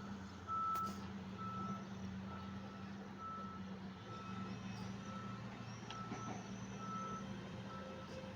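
A short, steady high-pitched beep repeating just under twice a second, like a reversing alarm, over a steady low hum.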